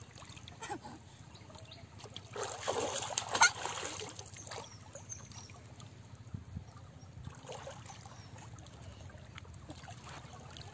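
Water sloshing and splashing as people wade and grope about in it chest-deep, with a louder stretch of splashing from about two to four and a half seconds in and a smaller splash later on.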